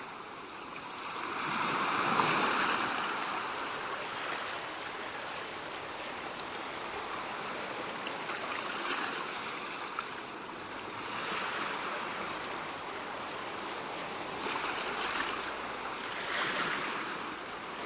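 Ocean surf: a steady wash of waves, with single waves swelling and breaking every few seconds, the loudest about two seconds in.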